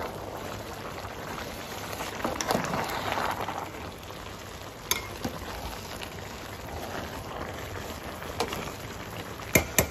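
Pot of beef pulao rice simmering with a steady bubbling hiss as the last of its cooking water boils off, the rice nearly dry. A metal spoon stirs through the rice and knocks on the pot, with a few sharp taps near the end.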